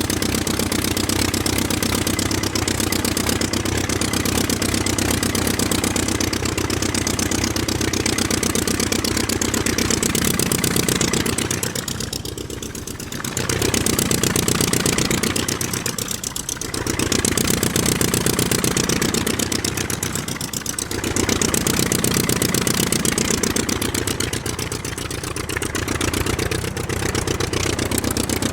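Aircraft engine running steadily, dipping briefly in level four times in the second half.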